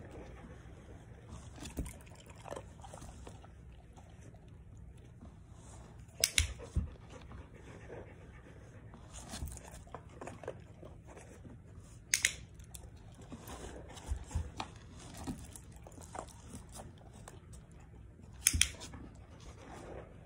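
Large black dog panting, with three sharp clicks about six seconds apart standing out as the loudest sounds.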